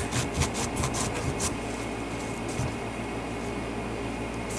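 Kitchen knife sawing through a tough squash: a quick run of short scraping strokes, about five a second, in the first second and a half, then a steady low hum.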